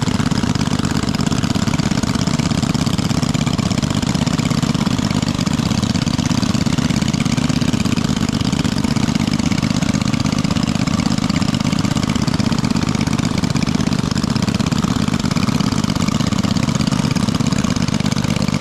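A small engine running steadily at an even idle-like speed, with a fast, regular low pulse.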